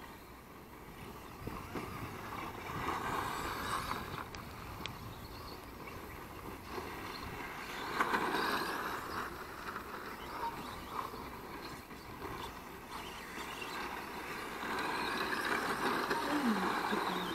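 Radio-controlled model cars driving on a dirt track, their motors and tyres swelling and fading as they pass, loudest about three seconds in, around eight seconds, and near the end.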